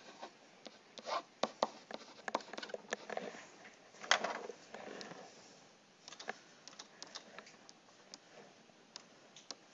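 Faint scratching and tapping of a pen writing on a tablet, then scattered light clicks as keys are entered on a computer.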